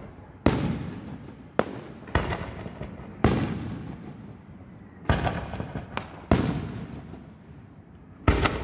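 Aerial firework shells bursting overhead: about eight sharp booms at uneven intervals, each trailing off into a fading rumble over a second or so.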